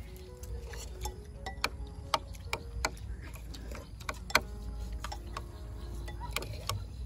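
Metal spoons and forks clinking and scraping against ceramic plates and bowls: irregular sharp clinks, some with a brief ring, over a steady low rumble.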